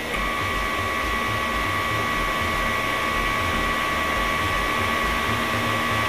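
Battery-powered CKEYIN pore vacuum blackhead remover running with its suction tip on the skin of the nose: a steady small-motor hum with a high whine.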